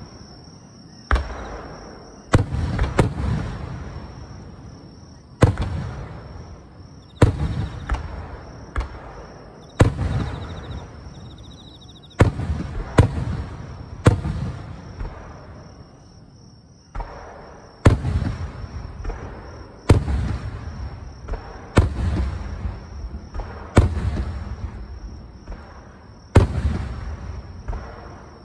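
Aerial firework shells bursting, a sharp boom every one to three seconds, each trailing off in a rolling echo.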